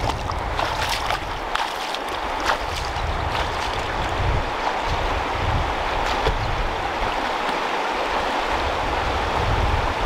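Shallow river water rushing over stones, with splashes of someone wading through it in the first two or three seconds. Low, uneven rumbles of wind buffet the microphone.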